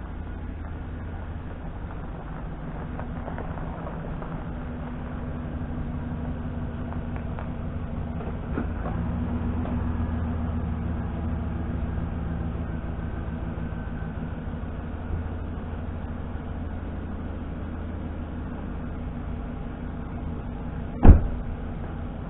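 An engine running steadily, getting a little louder about a third of the way in, with one sharp, loud knock near the end.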